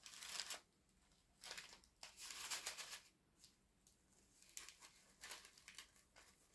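Faint rustling and crinkling as small items are pushed back into a small charm bag: a few short bursts in the first three seconds, then lighter scattered rustles.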